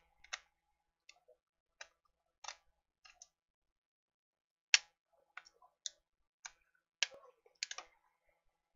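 Irregular sharp clicks and taps of a Samsung Tab 3 7-inch tablet being put back together after its charging port repair, as its plastic casing parts are handled and fitted. About a dozen clicks, the loudest about five seconds in.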